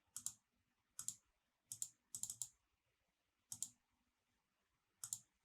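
Computer keyboard and mouse clicks: six short bursts of one to a few quick clicks, spaced irregularly with quiet between them.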